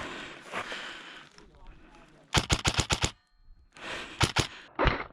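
Airsoft rifle firing a rapid full-auto burst of about eight shots, followed a second later by a few more shots.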